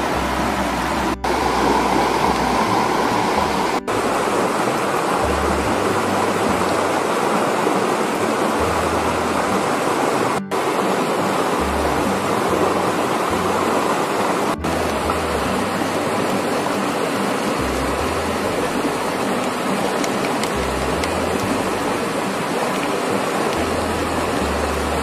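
Steady rushing of a flowing river, broken by four very brief dropouts.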